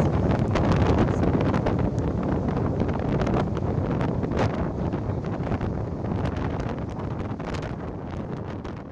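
Wind buffeting the microphone, a dense rushing noise with many crackles, fading out near the end.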